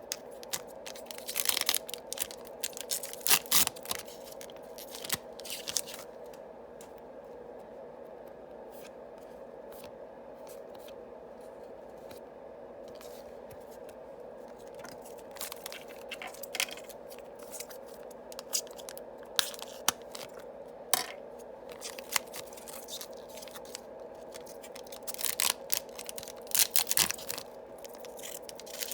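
Yu-Gi-Oh booster packs being torn open and their cards handled: scattered crinkling, tearing and snapping of wrappers and card stock, in bursts with a quieter spell in the middle, over a steady low hum.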